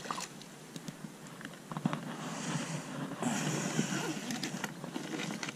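Scattered light knocks and clicks of gear being handled in a small boat, over a soft hiss.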